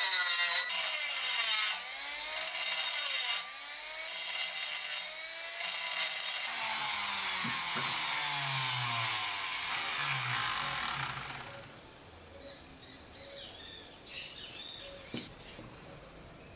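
A metal-cutting tool working a steel knife blank in short bursts of about a second each, with a high whine, throwing sparks. From about six and a half seconds a steadier machine noise takes over and fades away by about twelve seconds. Then come a few light clicks of handling.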